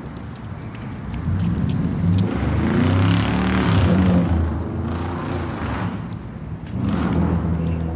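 Motor vehicle traffic with a steady low engine hum, swelling as a vehicle passes about three to four seconds in.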